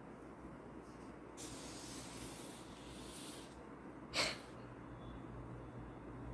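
A person's breath through the nose: a soft breathy hiss for about two seconds, then one short, sharp sniff about four seconds in.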